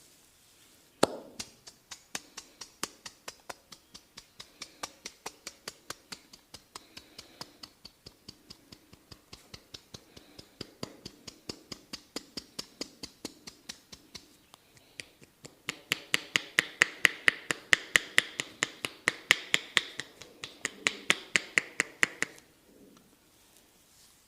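Rapid, rhythmic percussive tapping strokes of a massage, sharp clicking slaps at a few per second. They start with one sharp strike about a second in, turn much louder and denser for several seconds past the middle, and stop shortly before the end.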